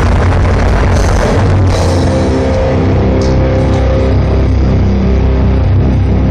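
Grindcore band playing live through a festival PA at full volume, heard from the crowd: heavily distorted guitars, bass and drums. About two seconds in, the dense wall of noise gives way to held distorted notes over a heavy low end.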